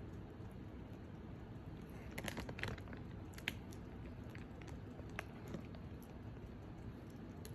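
A dog eating potato chips from the packet: a short cluster of crunches and crackles about two seconds in, then a single sharp click and a few fainter ones.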